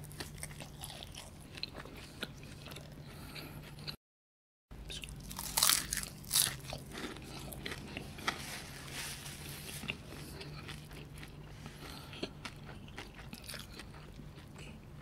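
Close-up eating sounds of beef Wellington: crisp puff pastry crunching under the teeth and wet chewing of the well-done beef inside, with the loudest crunches of a fresh bite about five to six seconds in. The sound cuts out briefly near four seconds in, and a steady low hum runs underneath.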